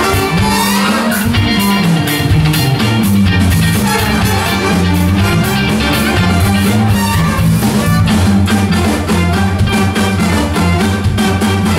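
Live band playing an upbeat song, with a steady bass line, drum kit, guitar and horns (trombone and saxophone).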